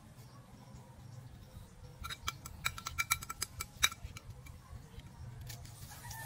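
Coconut fronds being stripped by hand for broom midribs: a quick, irregular run of about a dozen sharp clicks and snaps in the middle, over a low steady rumble.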